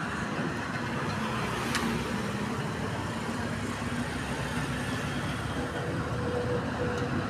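Steady hum of a running engine under a constant wash of street noise, with one sharp click about two seconds in.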